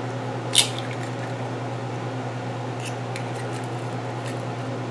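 A raw egg being cracked: one sharp tap of the shell about half a second in, then a few faint crackles of shell as it is pulled apart over the bowl, over a steady low hum.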